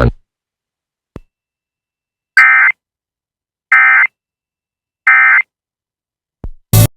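Three short bursts of Emergency Alert System SAME data tones, each about half a second long and about 1.3 seconds apart: the end-of-message signal that closes an alert. A faint click comes about a second in, and a loud pop near the end.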